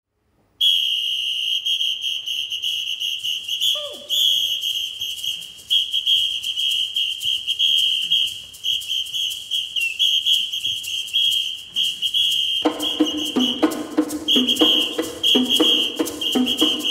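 A shrill whistle blown in a rhythmic samba pattern of short and longer blasts, over light clicking percussion, with a single falling swoop about four seconds in. About thirteen seconds in, the men's choir joins with low rhythmic singing under the whistle.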